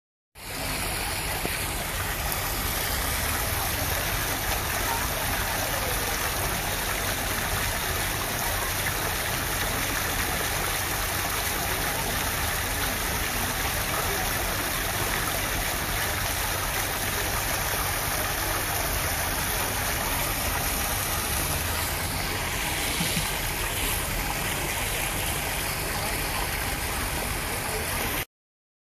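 Waterfall: a steady, unbroken rush of falling water that fades in at the start and cuts off abruptly near the end.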